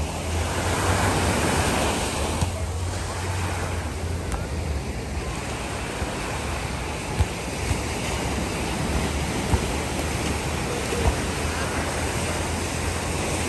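Small ocean waves breaking and washing up on a sandy beach, a steady surf wash, with a low rumble of wind on the microphone.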